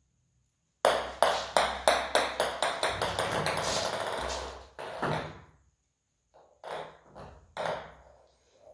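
Cat jumping and pawing at a pop-up fabric play tent. A run of sharp taps and clicks, about three a second, leads into fabric rustling, then a few scattered knocks and bumps.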